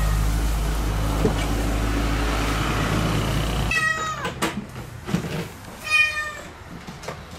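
Kitten meowing twice in high-pitched calls, the first falling in pitch, about four and six seconds in, with a few sharp clicks and knocks around them. Before the first meow a steady low rumble runs and then cuts off abruptly.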